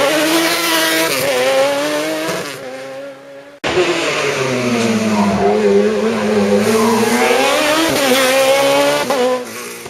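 Open sports-prototype race car engines at high revs driving past. The first fades away as it climbs. After an abrupt cut about three and a half seconds in, a second car's engine dips and rises in pitch as it accelerates through the cone chicanes, then fades near the end.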